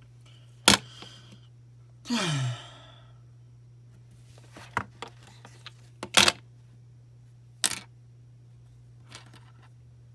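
Several sharp clicks and knocks of small hard objects being handled, with a short falling sigh about two seconds in, over a steady low hum.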